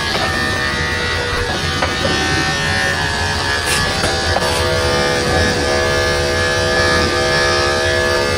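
Corded electric dog-grooming clipper buzzing steadily as its blade is run through a poodle's curly coat around the tail and rear, the tone shifting slightly about halfway through.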